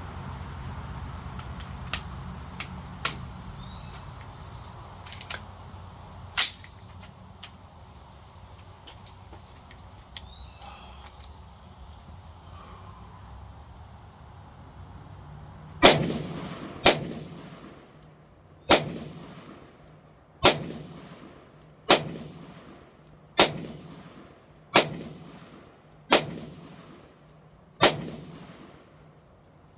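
An FMK Arms AR-15 rifle firing a string of about nine single shots, roughly one every second and a half, each followed by a trailing echo, beginning about halfway through. Before the shots there are a few light clicks and knocks, and insects chirp steadily in the background.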